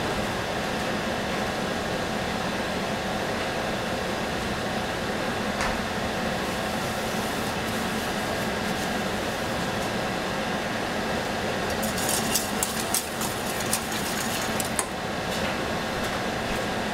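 A steady rushing noise throughout, with a quick run of light metal clinks about twelve to fifteen seconds in: a wire whisk knocking against a stainless saucepan of milk.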